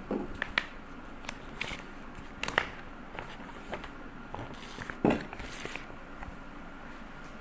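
Household objects being handled, likely kitchen utensils or dishes: scattered light clicks and knocks, with two louder knocks about two and a half and five seconds in.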